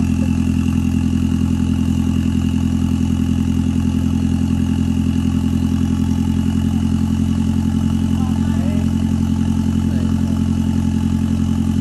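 Off-road 4x4 engine running steadily at idle with an even low pulse, and a thin high whine held above it. The truck is stuck in deep mud and water that it cannot drive out of.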